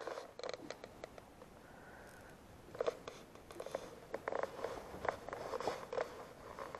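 Daiwa Ardito baitcasting reel being handled and cranked: a quiet, fast run of small clicks and rasps, denser from about three seconds in.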